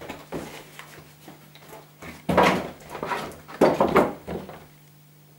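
Close handling noise: irregular rustling and rubbing bursts, the loudest about two seconds in and again near four seconds.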